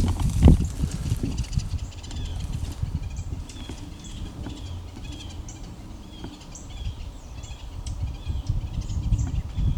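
A loud low thump right at the start with about a second of low crashing after it, just after a bow shot at a buck: the arrow's hit, which the hunter calls a loud pop, and the deer bolting. Then a bird calls over and over in short chirps, about two a second, over a low rumble on the microphone.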